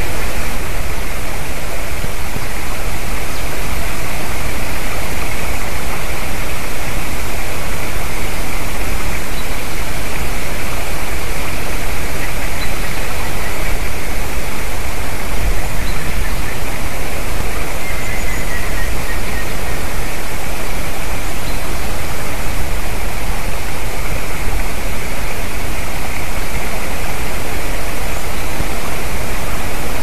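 A steady, loud hiss of noise covers everything. About two-thirds of the way through, a faint, distant series of notes falls in pitch, matching a grey-headed woodpecker's call, and a few faint single bird chips come and go.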